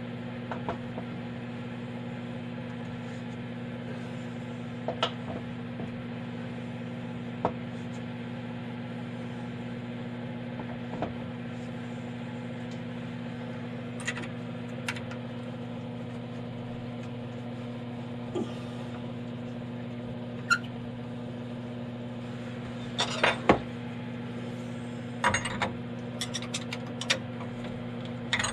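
Metal clicks and clinks of a router bit being changed in a CNC spindle, with a busier run of clinks near the end. A steady low machine hum runs underneath.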